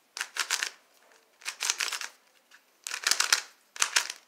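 QiYi windmill cube, a plastic twisty puzzle, being turned rapidly by hand: four quick flurries of clicking, clattering layer turns with short pauses between them.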